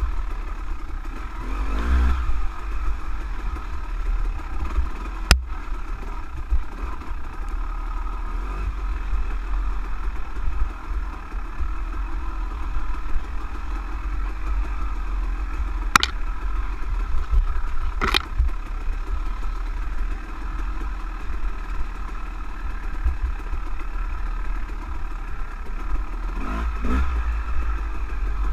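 On-board dirt bike engine running as the bike rides over rocks and wet leaves, with heavy low rumble and the revs rising briefly near the start and near the end. Three sharp knocks stand out, about five seconds in and twice more later on.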